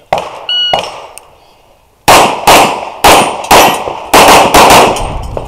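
A shot timer's electronic start beep, then about a second and a half later a rapid string of about nine pistol shots, fired in quick pairs and groups.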